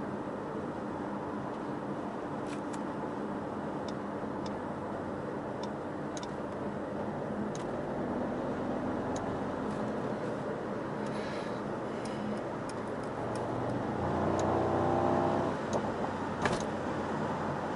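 Mercedes-AMG SL 63's twin-turbo V8 and tyre roar heard from inside the cabin at motorway speed, steady at first, then the engine note rising and getting louder as the car accelerates about three-quarters of the way through. Scattered faint clicks, with one sharper click near the end.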